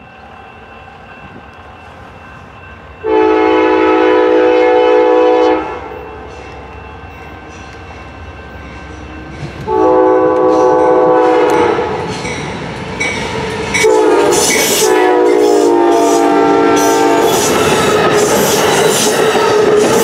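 An Amtrak diesel locomotive's multi-chime air horn sounds the grade-crossing signal: two long blasts, a short one, then a final long blast. After it, the train's passenger cars pass close by with steady wheel and rail noise and clatter.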